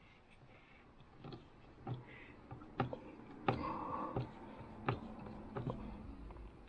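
Scattered light clicks and taps of small hard plastic parts being handled, from fitting a car's interior door handle and its trim into the door panel; about half a dozen sharp clicks at irregular intervals, a few followed by a brief rattle.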